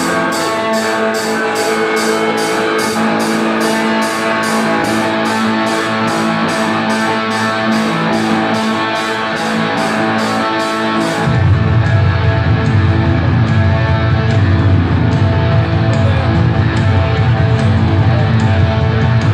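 Live rock music: an electric guitar plays over a steady high ticking beat of about two ticks a second. About eleven seconds in, a bass guitar comes in and the music gets louder and fuller, while the ticking stops.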